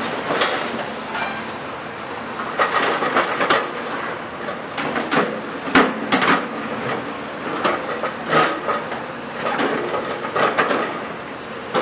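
Steel hall framework being wrenched apart by a long-reach demolition excavator: irregular metallic clanks, creaks and screeches of steel members bending and scraping, with the sharpest crack about six seconds in.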